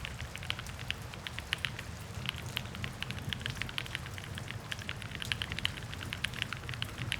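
Fast, continuous typing on a Mode Sonnet custom mechanical keyboard built with Gateron Cream Soda switches, a full aluminium plate and GMK keycaps. Many keystrokes a second, each a sharp clack over a low, even thud.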